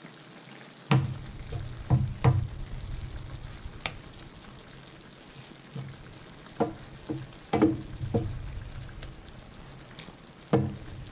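A wooden spoon knocking and scraping against a metal mesh strainer as parboiled rice is pushed out of it onto chicken in a stainless steel pan: about eight irregular knocks, over a low steady sizzle from the pan.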